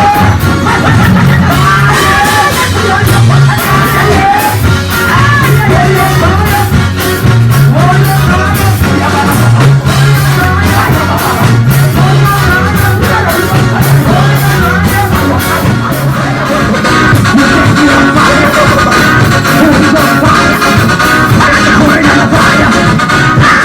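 Worship music from a band playing loudly: a stepping bass line under steady drums and guitar, with singing.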